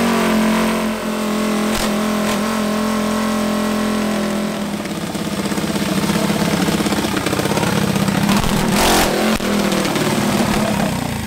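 Cast-block drag-racing minibike's single-cylinder engine running fast and steady just after being started. About halfway through its note turns uneven and fluttering, with one brief louder burst about nine seconds in.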